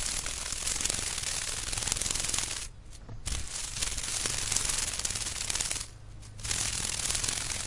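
Dragonfly wings whirring: a rapid rattling buzz in three long stretches, breaking off briefly about three seconds in and again about six seconds in.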